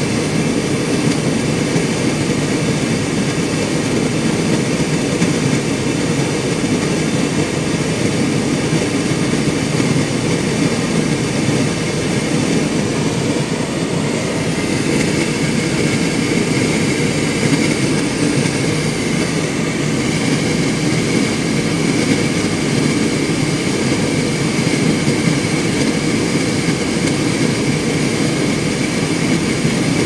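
Hotpoint Ultima S-Line tumble dryer running a cycle: a loud, steady whir of motor and fan as the drum turns, tumbling a load of clothes.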